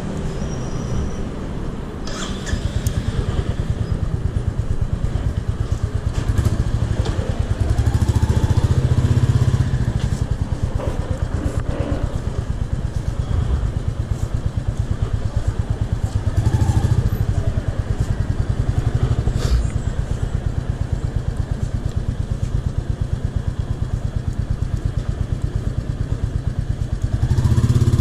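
Royal Enfield motorcycle engine running under way, with a low, fast pulsing note. It swells louder several times as the throttle opens and the revs rise.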